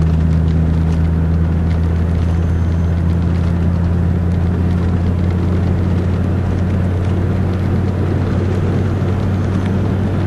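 1990 Mercedes-Benz 300D 2.5's five-cylinder turbodiesel engine, heard from inside the cabin, running at a steady speed with road noise underneath. The engine is warmed up and runs smoothly.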